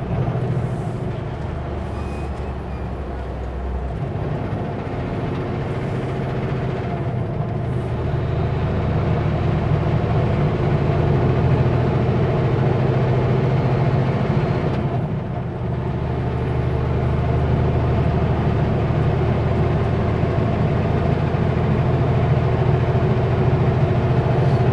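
Diesel engine of a Kenworth W900L semi truck pulling a heavily loaded Super B, running steadily under load. It dips briefly about fifteen seconds in, then builds again.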